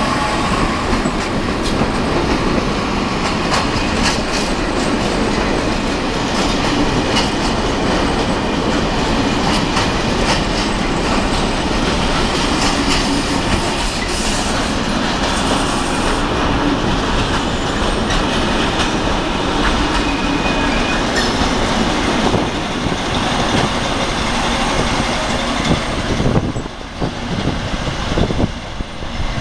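Freight train of container wagons rolling past at close range, its wheels clattering over the rail joints with faint squeals now and then. About three seconds before the end the noise drops and turns uneven as the D345 diesel locomotive at the rear of the train goes by.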